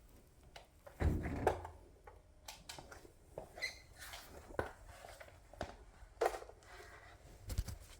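Scattered light knocks and rustles of things being handled and set down, with a louder thump about a second in.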